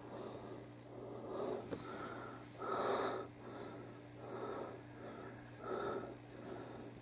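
A person breathing audibly through the nose close to the microphone: short, wheezy breaths about one a second, some with a faint whistle, over a low steady hum.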